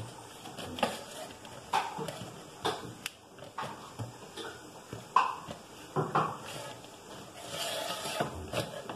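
Irregular light knocks and clatter, about once a second, of a cup and hands pressing pizza dough out in a round metal pan.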